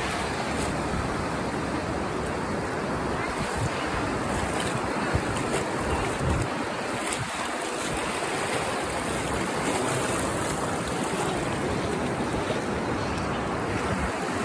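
Ocean surf washing along the shore, a steady hiss of breaking water, with wind buffeting the phone's microphone.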